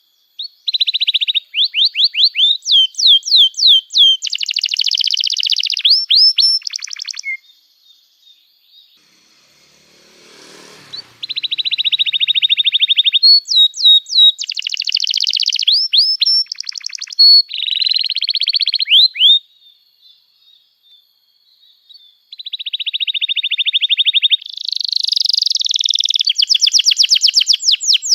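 Domestic canary singing long phrases of rapid trills and repeated high chirps, switching to a new note every second or two. The song breaks off twice for a few seconds, about a quarter of the way in and again about two-thirds of the way through.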